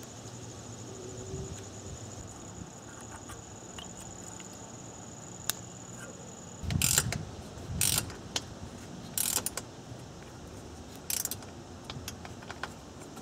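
Parts being handled in a car's engine bay: four short rattling, scraping bursts in the second half, with a few small clicks. A faint steady high-pitched whine runs through the first half and stops about halfway.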